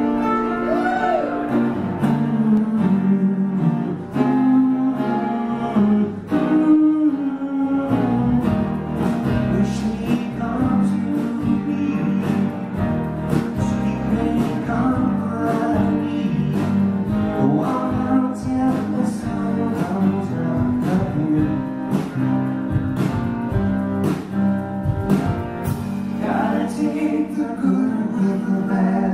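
Live band music: a man singing into a microphone over strummed guitar, with a steady beat.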